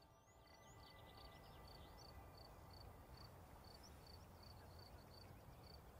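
Near silence: faint outdoor ambience with small high chirps repeating about three times a second.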